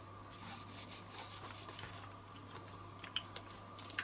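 Faint rubbing and scrubbing as a small switch panel is cleaned by hand, with a couple of light clicks near the end, over a steady low hum.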